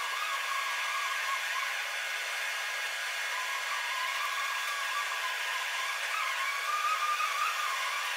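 Steady whirring hiss with a wavering whine from the SLJ900/32 mobile bridge girder erecting machine running as it carries the 900-ton box girder slowly forward.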